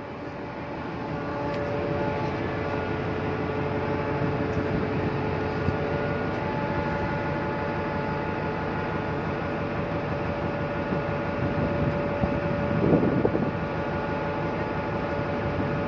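Steady hum of a ship's machinery: a noisy drone with a few held steady tones over it. A brief louder swell of noise comes near the end.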